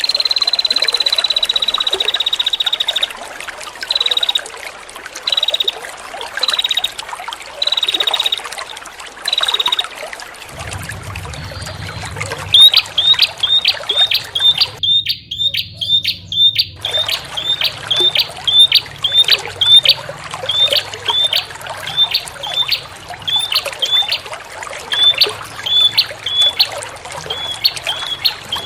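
Prinia (prenjak) calls over a steady trickle of running water. A long held whistle at the start is followed by short whistles about a second apart; from roughly halfway the calls become a fast series of short, sharp notes, two or three a second. A low hum joins partway through.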